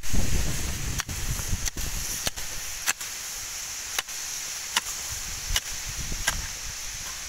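A hoe digging into the soil around a taro plant: a rough crunching of earth at first, then about eight sharp knocks, roughly one every three-quarters of a second.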